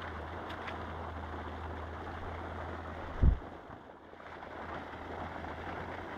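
Steady rushing noise with a low rumble beneath it, and one loud low thump about three seconds in.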